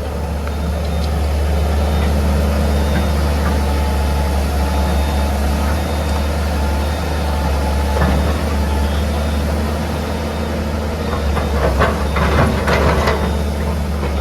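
Heavy diesel machinery running steadily, from an excavator and tipper truck at work. There is a single knock about eight seconds in and a burst of clattering knocks near the end.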